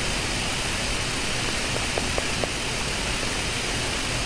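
Steady hiss of a noisy recording microphone, with a few faint ticks about two seconds in.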